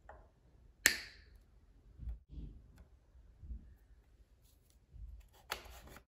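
Hands working the throttle wiring inside an opened Bird 3 scooter's stem housing: two sharp clicks, about a second in and again near the end, with soft knocks and rustles of wire and plastic between.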